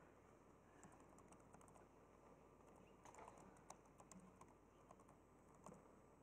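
Faint, irregular clicks of typing on a laptop keyboard over near-silent room tone.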